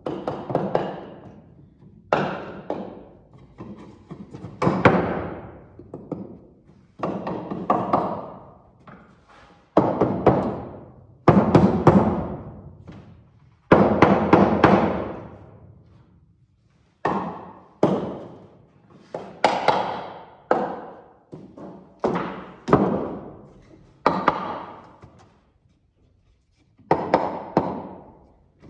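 Background music made of struck or plucked notes and chords, each starting sharply and dying away, roughly one every one to two seconds.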